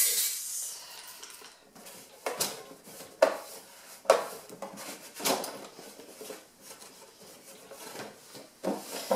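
Metal cutlery clinking and rattling against a plastic cutlery tray as it is handled and the compartments are wiped, with separate sharp clinks about a second apart.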